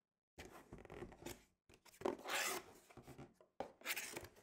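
Cardboard product box being opened by hand: its end flaps are pried and pulled open, making several spells of cardboard rubbing and scraping with a couple of sharp ticks, loudest about two seconds in.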